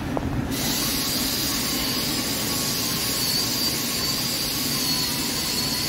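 Heavy CNC lathe turning an alloy cast-steel coupling, with steady machining noise. A high steady whine and hiss come in sharply about half a second in and hold.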